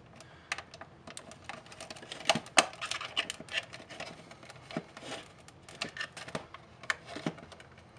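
Small flat-blade screwdriver scraping and clicking against the hard plastic housing of a spotlight as it pries under a plastic trim panel: irregular ticks and taps, loudest about two and a half seconds in.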